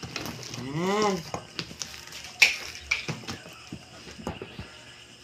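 Scissors snipping and clicking at a plastic packing strap on a cardboard box, in a series of sharp clicks with the loudest snip about halfway through. A short voice sound that rises and falls in pitch comes about a second in.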